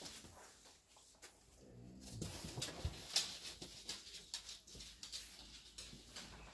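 A dog gives a short low groan, followed by scratchy rustling and clicks as thick dog fur rubs against the phone's microphone.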